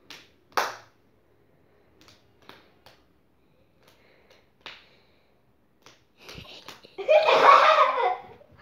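Soft hand slaps, a fist striking an open palm a few times in a rock-paper-scissors hand game. About seven seconds in comes a loud burst of children's laughter.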